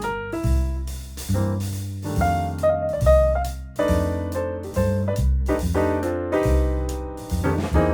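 Background music: piano with a bass line, in a jazzy style.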